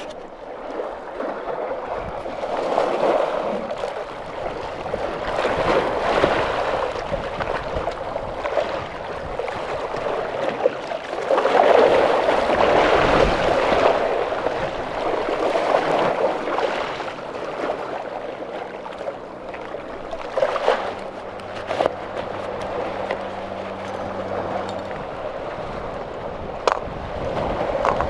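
Small waves washing and surging over rocks at the water's edge, the rush swelling and ebbing every few seconds. A few short clicks sound in the second half.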